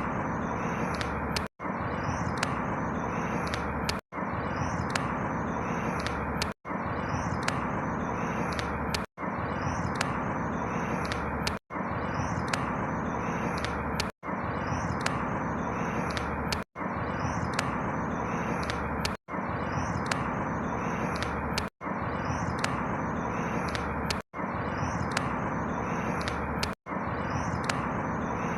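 Steady outdoor background noise with faint high chirps, a short recording looped about every two and a half seconds, each repeat broken by a brief cut to silence.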